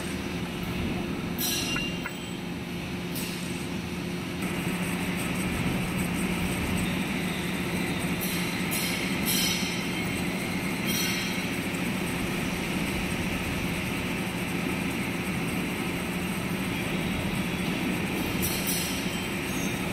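Metal lathe running steadily with a low hum, spinning a split bushing in its three-jaw chuck. It gets a little louder about four seconds in, and short bright clinks break through now and then.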